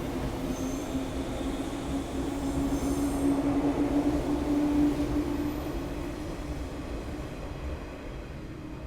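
JR 185 series electric train pulling out of the station: a steady running drone with a strong hum that swells about three to five seconds in and then fades as the train moves away, with faint high wheel squeal early on.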